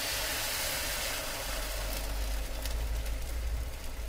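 Water poured into a hot, oiled skillet of searing diced sweet potatoes, hissing and sizzling steadily as it hits the pan. The sizzle eases off over the last couple of seconds, with scattered crackles.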